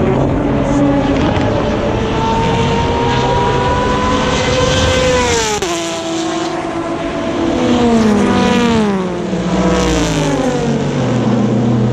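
Race cars passing at speed on a racing circuit. One car's engine rises in pitch as it approaches, then drops sharply as it goes by about halfway through, and a second car passes with another falling pitch a few seconds later. A steady low engine drone sits under the start and end.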